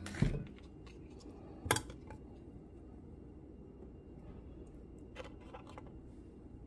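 Two sharp clicks from handling kitchenware, about a second and a half apart, then a few faint ticks, over a faint low hum.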